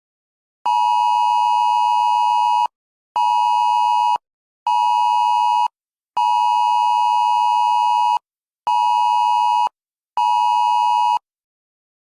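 Emergency alert attention tone: a loud, steady two-tone beep sounding in a long-short-short pattern, twice over, which is the cadence of the Wireless Emergency Alert signal.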